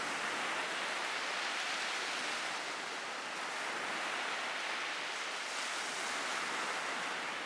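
Small sea waves breaking and washing up a sandy beach: a steady rush of surf that swells and eases gently.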